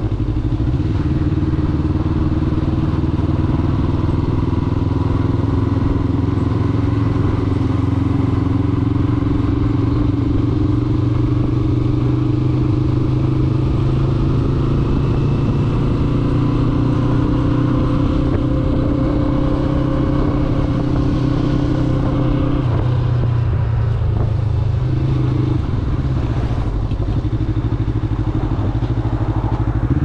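Yamaha MT-25's 250 cc parallel-twin engine running through an SC-Project slip-on exhaust at a steady cruise, the note drifting only slightly. About three quarters of the way through, the steady note breaks off and drops as the throttle is eased off.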